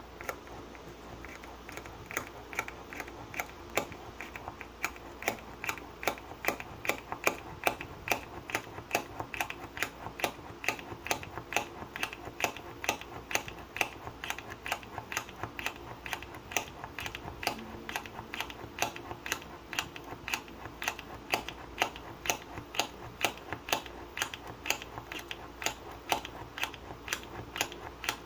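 Mini Archimedes push drill worked by hand, its collar sliding up and down the spiral shaft to spin the bit into wood: a steady run of sharp clicks, about three a second, starting about two seconds in.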